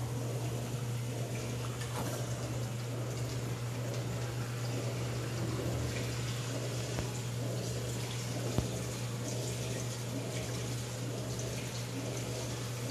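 Reef aquarium running: water flowing and trickling over a steady low pump hum, with a single sharp click about eight and a half seconds in.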